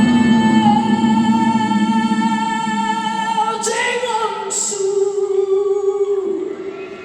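Live rock concert: a female vocalist singing long held notes over sustained accompaniment, with two brief high-pitched sounds about four seconds in; the music drops away near the end.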